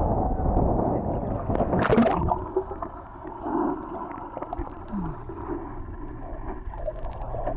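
Sea water sloshing and gurgling, heard muffled, with a sharp splash about two seconds in.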